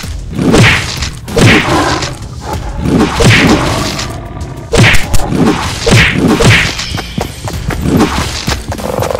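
Stock cartoon fight sound effects: a run of about ten thuds and whacks, one or two a second, weakening near the end.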